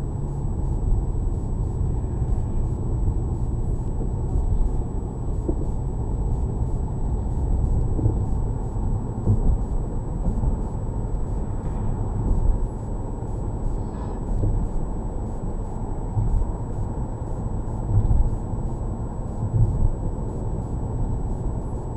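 Steady low rumble of a car's engine and tyres on the road, heard inside the cabin while driving, swelling a little now and then, with a faint thin high whine held throughout.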